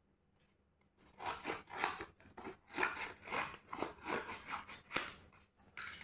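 Stiff invitation card being handled and flexed: a dense run of papery rustles and crackles starting about a second in.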